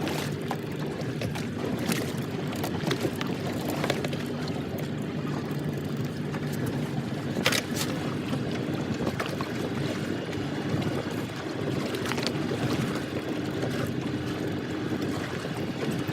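Boat engine running steadily, with wind on the microphone and scattered knocks and clicks, the sharpest about seven and a half seconds in.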